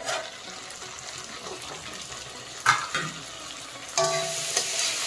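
Kohlrabi and tomato bhaji sizzling in an uncovered pan as it is stirred, with a couple of sharp utensil clicks just past the middle and the sizzle growing louder about four seconds in. The bhaji is cooked through and ready to come off the heat.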